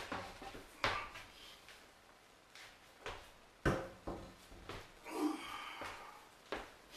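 Knocks and thumps of a long removed wooden post being lifted and handled, about half a dozen, the loudest about three and a half seconds in. A short scraping sound follows around five seconds in.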